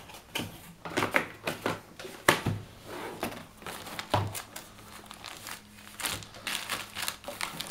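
A cardboard box being opened and handled by hand: flaps and the cardboard insert scraping and crinkling in quick irregular clicks, with two louder knocks about two and four seconds in.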